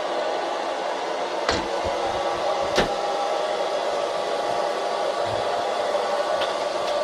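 Panda X500 Pet Series robot vacuum running, a steady whir of its suction motor, with two sharp knocks about a second and a half and three seconds in.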